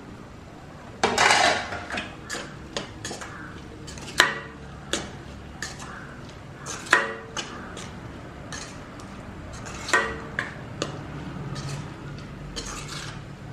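A spatula knocking and scraping against a cooking pot while diced raw mango is stirred into thick chili masala. A dense rattle about a second in as the mango pieces tumble into the pot, then irregular knocks and scrapes, the sharpest about four seconds in.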